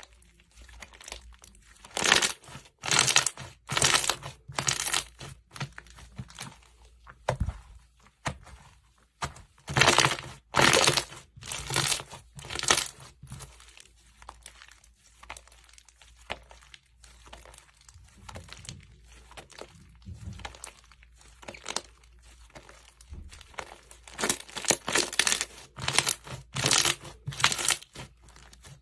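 Slime being squeezed and pressed by hand, making crackly squelches and pops in irregular bursts: loudest about two to five seconds in, again about ten to thirteen seconds in, and near the end, with quieter handling between.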